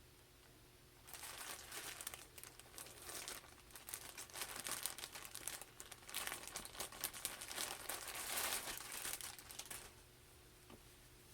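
Packaging of a mailed parcel crinkling and rustling, with some tearing, as it is handled and opened to get at a jersey. It starts about a second in and stops near the end.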